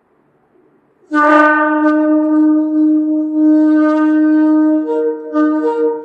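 Shofar (ram's horn) blown in one long blast that starts abruptly about a second in on a steady low note. Near the end the pitch jumps up and wavers between two notes.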